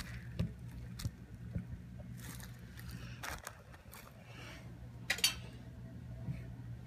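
Handling noise from a phone held in the hand: fingers rubbing and bumping close to the microphone, with scattered scrapes and a few sharp clicks, the sharpest about five seconds in, over a steady low hum.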